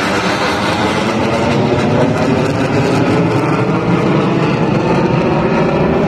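Loud, steady jet noise from an F-16 fighter's turbofan engine as the jet flies overhead.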